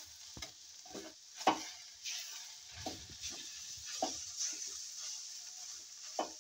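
Metal spatula scraping and knocking against a kadhai as coarsely ground soya chunk stuffing is stirred, in irregular strokes with the sharpest clank about a second and a half in. Under it runs a light sizzle from the mixture frying in a little oil.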